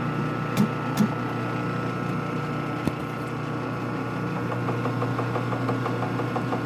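A mallet knocks on a workpiece in a lathe chuck twice, about half a second and one second in, and once more lightly near 3 seconds. From about 4.5 seconds the lathe chuck turns with a regular light ticking, about five a second, over a steady machine hum.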